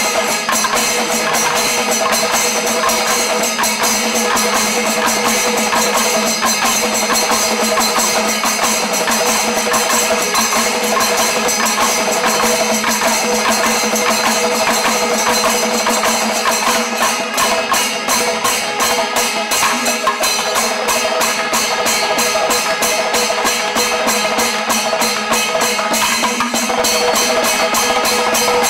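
Kerala chenda melam: massed chenda drums played together with hand cymbals in a loud, dense, continuous rhythm. A fast, even beat stands out more clearly in the second half.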